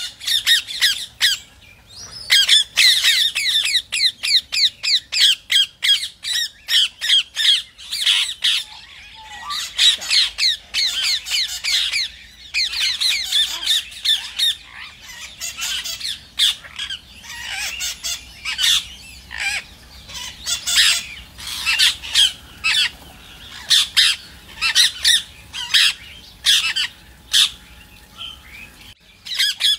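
Rose-ringed parakeet (Indian ringneck) calling in a fast string of short, high-pitched squawks, several a second, with brief pauses about two seconds in and near the end.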